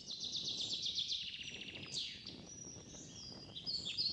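Songbirds singing: a fast trill of rapidly repeated high notes, then a falling slurred note about halfway through and a run of varied short chirps.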